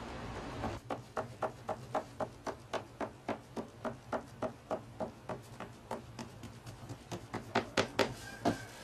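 Steady rhythmic tapping, about four short knocks a second, growing louder near the end.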